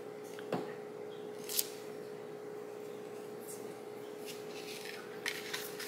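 Cut paper and card being handled and pressed into place: a soft tap about half a second in, a short papery rustle a second later, and a few more rustles near the end, over a steady faint hum.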